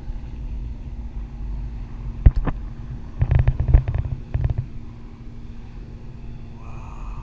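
Wind buffeting the camera microphone during a parasail ride, a steady low rumble. A sharp knock a little over two seconds in and a cluster of knocks and rattles from about three to four and a half seconds in, as the camera is turned and handled.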